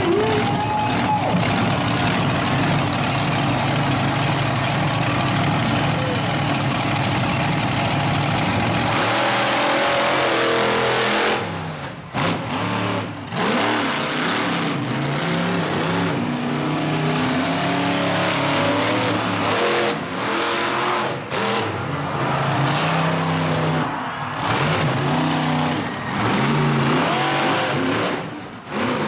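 Monster truck engine revving up and down again and again as it drives. A dense wash of noise covers the first third, and after that the rising and falling engine pitch stands out, broken by brief lulls.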